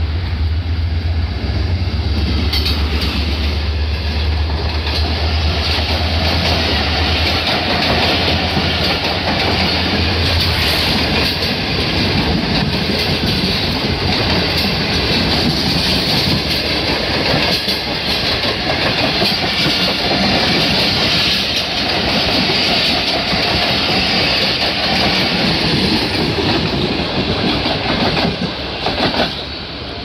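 Pakistan Railways diesel locomotive ZCU-30 and its passenger coaches passing at speed: a deep engine drone for the first several seconds, then a long steady rush and clatter of the coaches' wheels on the rails, which drops away abruptly near the end.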